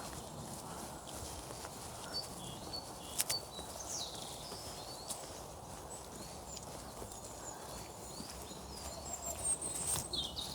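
Small woodland birds calling with scattered short, high chirps over a steady low rustle, with a couple of sharp clicks.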